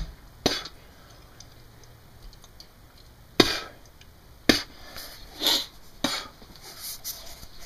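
Four sharp knocks with quieter rustling and scraping between: a plastic bowl of wet acorn meal being handled at a stainless kitchen sink.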